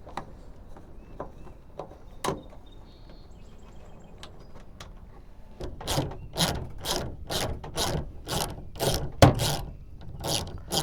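A hand ratchet clicking as it loosens a fastener on a truck's inner door panel: a few scattered clicks, then from about halfway through a steady run of ratcheting strokes, about two a second.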